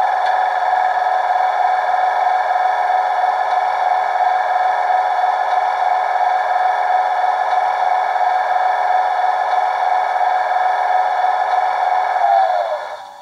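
Recorded Class 91 electric locomotive air compressor played through a model loco's DCC sound decoder speaker: a loud, steady mechanical whine while stationary. Near the end it runs down, the whine falling in pitch, leaving a quieter steady hum of the loco's idling machinery.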